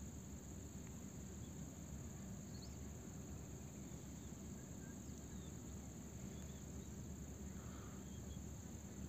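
Faint, steady interior noise of a gondola cable-car cabin gliding downhill along its cable: a low, even rumble under a constant high-pitched hiss.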